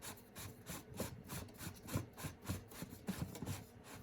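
Rhythmic rubbing and scraping strokes, about four a second, of hands and a rag working around the oil filter housing cap.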